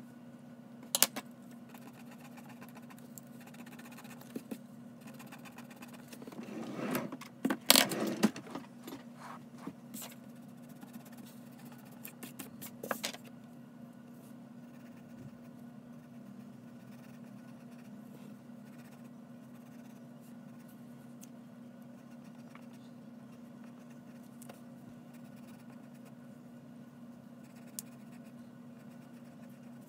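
Graphite pencil sketching on paper, faint scratching strokes over a steady low hum. About seven seconds in comes a louder burst of scraping and rustling as the sheet is shifted on the desk, with a few sharp clicks around it.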